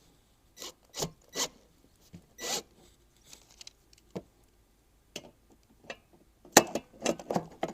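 Handling noise from freshly bolted cart parts being moved and checked: scattered rubs, scrapes and knocks, with a burst of louder knocks near the end.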